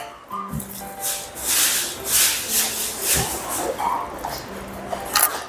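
Jjajangmyeon noodles being slurped from a bowl and chewed: a few hissy slurps, with soft background music underneath.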